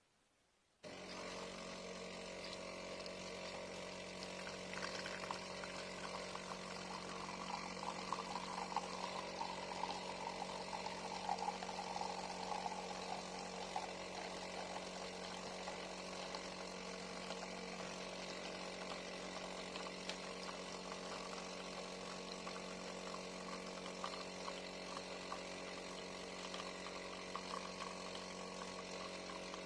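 De'Longhi Magnifica S automatic espresso machine running, its pump buzzing steadily as liquid pours. The buzz starts suddenly about a second in.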